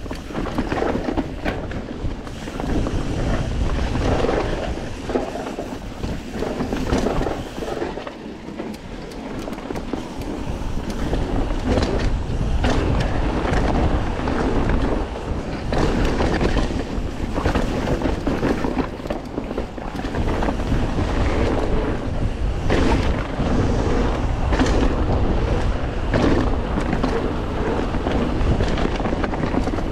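Wind rushing over the microphone of a rider-mounted camera on a mountain bike ridden down a dirt jump trail, with tyre roar and scattered knocks from the bike over bumps and landings.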